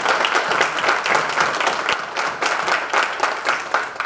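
Audience applauding, with some single claps standing out close by. It dies away near the end.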